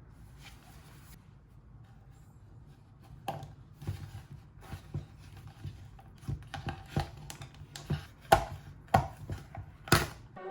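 Knife chopping on a cutting board: irregular sharp knocks that begin about three seconds in and come roughly one or two a second, over a low steady hum.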